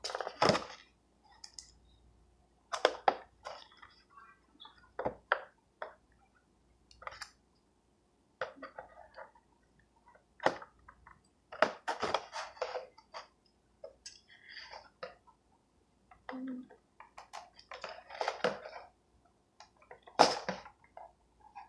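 Scissors cutting the tape on a cardboard toy box while the box is handled: scattered short snips, scrapes and rustles with pauses between them.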